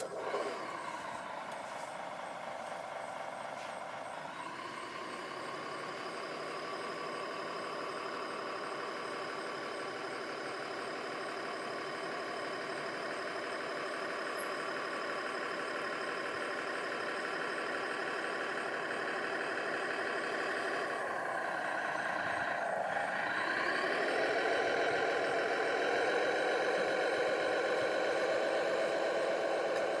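RC model bulldozer's drive motors and gearboxes whining steadily as it crawls over a stone-dust pile. The whine dips in pitch and climbs back about two-thirds of the way through.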